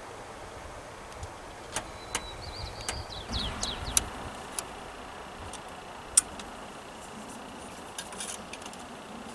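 Scattered clicks and light snaps of hand work on the throttle cable and linkage at a 1993 Chevy K3500's throttle body, as the sticky old cable is being replaced. A brief squeak comes about three seconds in, and the sharpest snaps come about four and six seconds in.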